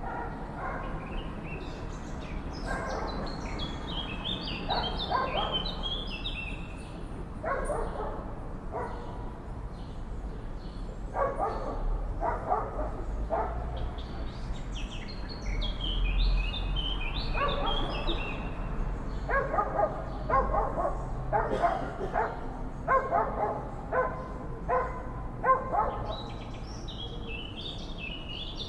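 Crows cawing in clusters of harsh repeated calls, coming thicker in the second half, while swallows twitter in quick high chirps above them.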